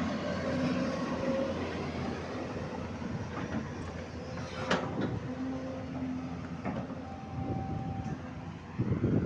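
Hyundai 210-7 hydraulic excavator at work: its diesel engine running steadily, with short steady tones that come and go, a sharp clank about four and a half seconds in, and the engine getting louder near the end.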